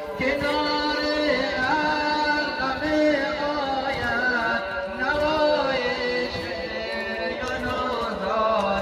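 A male voice chanting a Shia Muharram mourning lament (noha) for Ashura, sung in long melodic phrases that rise and fall.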